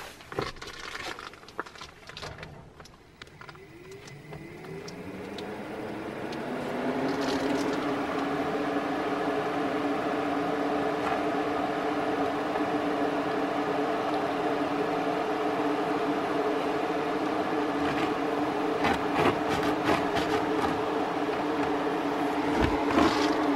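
A 16-inch crate fan with stepless PWM speed control spins up, its motor hum rising in pitch and loudness over a few seconds, then runs with a steady hum. A few clicks come before it starts, and a few more over the hum later on.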